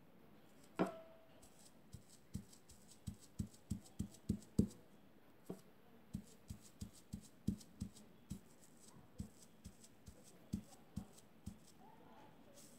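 Small sponge dabbing fabric paint through a stencil onto cloth: a run of soft, irregular taps, about two or three a second, with one sharper click and short ring about a second in.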